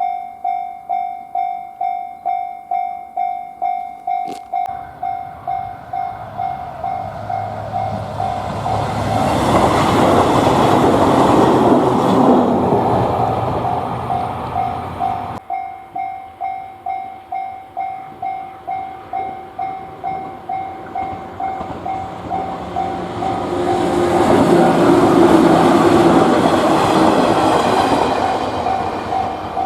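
Japanese railway level-crossing warning bell ringing its steady "kan-kan", about two strikes a second. Twice it is joined by a passing train, whose rumble and wheel noise swell up and fade away, and midway the sound changes abruptly.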